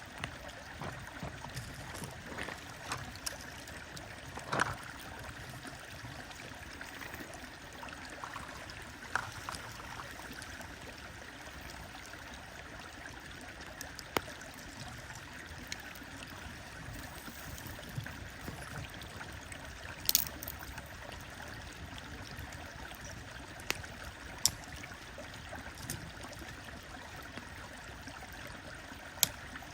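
Wood fire crackling, with scattered sharp pops and snaps, over the steady rush of a stream. Two louder pops stand out, one about four and a half seconds in and one about twenty seconds in.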